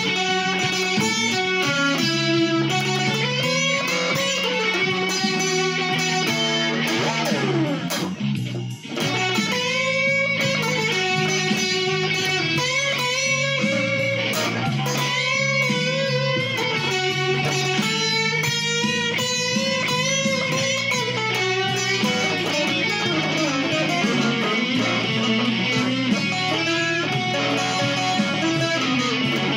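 Electric guitar playing a slow blues lead, with many notes bent up and back down. It briefly drops away about eight seconds in.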